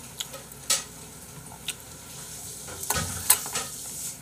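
A spoon clicking and scraping in a bowl of gochujang egg rice, with soft wet stirring sounds; a handful of sharp clicks, the loudest about three seconds in.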